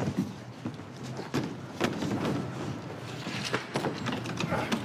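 Running footsteps: quick, uneven footfalls of people sprinting on foot.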